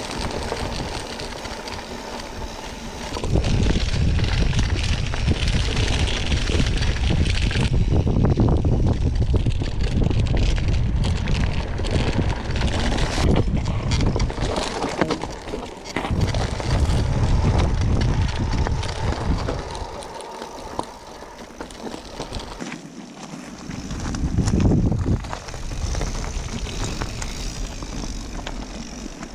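Mountain bike riding over rocky gravel singletrack: tyres crunching and the bike rattling, with many small knocks, under a low rumble of wind buffeting an action camera's microphone. It eases off for a few seconds past the middle.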